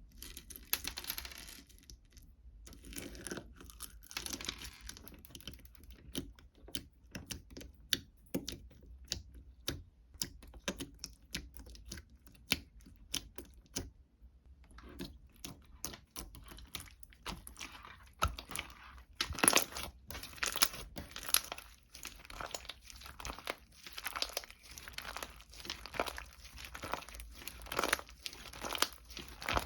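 Close-up crinkling and tearing of paper or plastic being handled, with many small sharp clicks and taps; it grows busier and louder about two-thirds of the way through.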